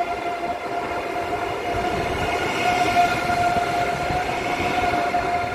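A YHT high-speed electric train moving slowly along the platform: a rumbling running noise with a steady high whine held over it.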